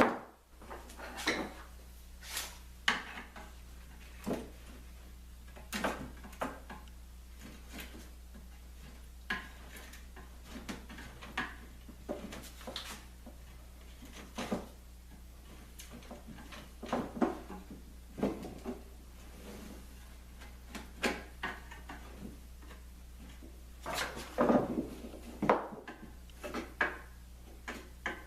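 Scattered scrapes, clicks and light knocks of hand tools working squeezed-out glue off a fresh plywood lamination glue-up, with a steady low hum underneath.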